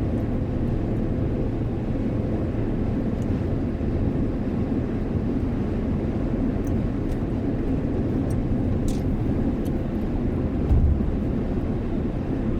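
Steady road and engine noise of a car at highway speed, heard inside the closed cabin, with a brief low thump near the end.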